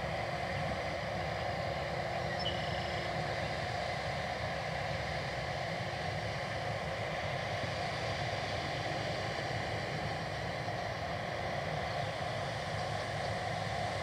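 Case IH 9230 Axial-Flow combines harvesting wheat: the steady drone of their diesel engines and threshing machinery.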